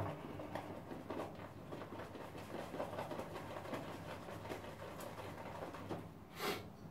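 Faint, steady swishing and light ticking of a shaving brush being swirled on a puck of Wilkinson Sword shaving soap, loading it with more lather, with a short louder swish near the end.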